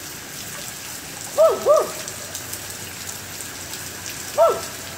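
Steady rain falling, with a dog giving three short barks: two in quick succession about a second and a half in, and one near the end.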